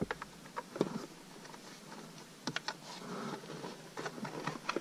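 Hands working among the plastic glove box and dash trim: scattered light plastic clicks and taps in a few short clusters.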